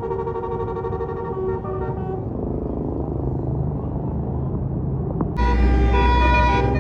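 Tour bus Basuri telolet multi-tone horns. The first horn plays a tune that stops after about two seconds, leaving bus engine and road rumble. About five seconds in, a louder horn blast starts suddenly.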